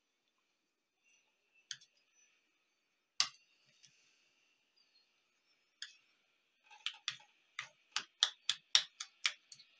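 Metal spoon clicking and scraping against ceramic serving bowls while scooping pico de gallo into guacamole. A few separate clicks at first, then a quick run of about three clicks a second near the end.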